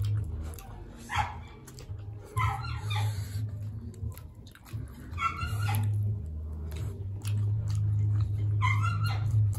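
Close-miked chewing and mouth sounds of people eating by hand, with a low rumble that comes and goes and short, sharp smacks or crunches every few seconds.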